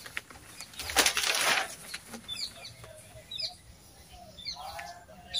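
A newspaper rustling loudly as it is opened out and shaken straight, about a second in. Small birds chirp a few times in the background after it.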